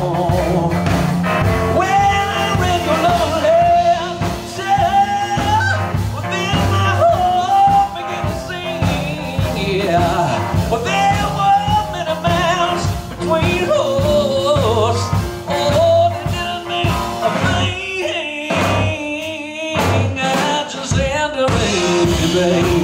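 Live blues band playing an instrumental break in an upbeat swing shuffle: electric guitar, drums and bass under a wavering lead line. The low end drops out for about two seconds near the end before the band comes back in.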